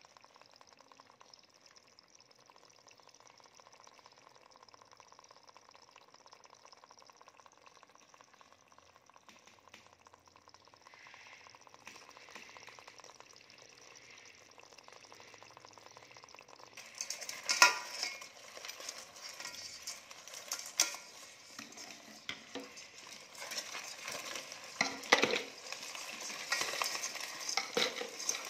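Rice-field crabs in a metal pot, their shells and legs scraping and clicking against each other and the pot: faint crackling at first, then from about two-thirds of the way in, loud irregular clicks and clatters as the crabs are handled and dropped into a plastic jar.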